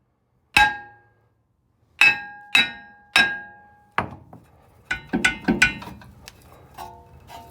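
Hammer blows on a steel brake rotor, each strike ringing like a bell, to knock the seized rotor loose from the hub. Four ringing strikes are followed by a duller knock and then a quick run of shorter clanks and clinks.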